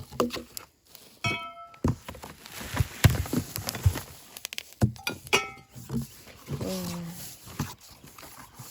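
Plastic parts knocking and rustling in a cardboard box as they are unpacked by hand. A few brief pitched squeals or calls cut in: two short high ones and a lower wavering one near the end.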